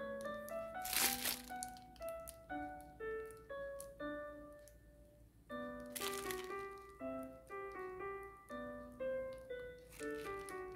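Background piano music, a gentle melody of single notes over a lower line, with short rustles about a second in, around six seconds and near the end.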